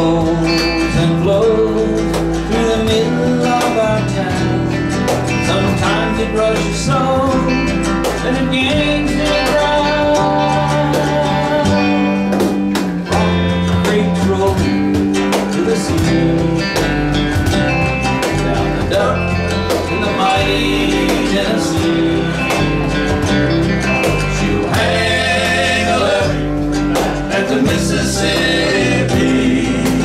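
Small live band playing a country song: strummed acoustic guitar, electric bass and electric guitar, with a man singing lead.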